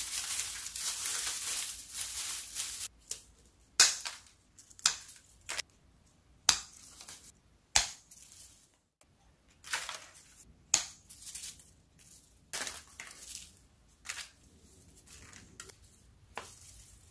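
Nandina foliage rustling as a hand pulls leaves from the stems for about three seconds. Then pruning scissors snip through stems about ten times, each a sharp, single snip, irregularly spaced about a second apart.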